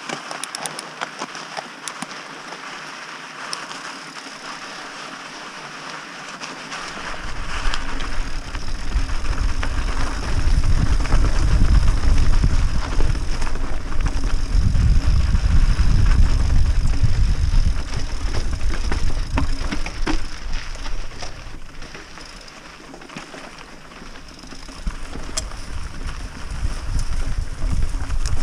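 Mountain bike rolling down a rocky dirt singletrack: tyres crunching over gravel and the bike rattling over stones. Wind buffets the microphone as speed picks up about seven seconds in, eases off a little after twenty seconds and rises again near the end.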